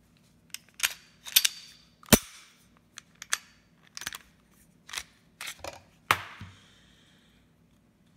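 Sharp metallic clicks and clacks of a Glock 17 pistol with an aftermarket LANTAC slide being field-stripped by hand, the slide worked and drawn off the frame; about ten separate clacks, the loudest about two seconds in.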